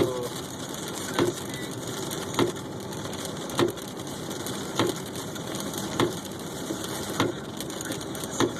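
Car windshield wipers knocking once at each sweep, evenly about every 1.2 seconds, over a steady hiss of rain and road noise inside the car.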